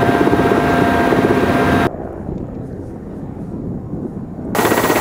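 Mi-8-type military helicopter in flight: a loud rhythmic rotor chop with a steady turbine whine. About two seconds in it drops abruptly to a quieter, muffled, low rotor sound. The loud chop returns about half a second before the end.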